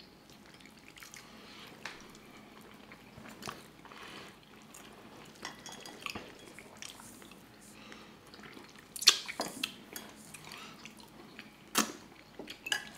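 Close-miked eating: people chewing stewed chicken and rice, with forks and spoons clicking against glass bowls; a few sharper clinks stand out in the second half.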